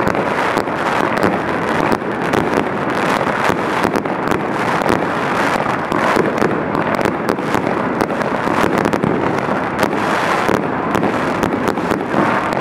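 Fireworks crackling and popping without a break: a dense, loud crackle full of sharp pops.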